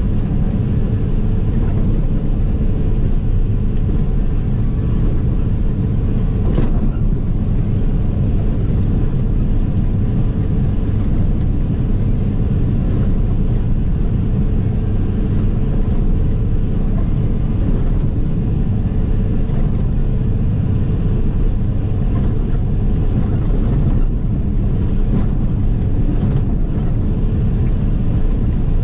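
Steady rumble of road and engine noise from a car driving along, with a single short knock about six and a half seconds in.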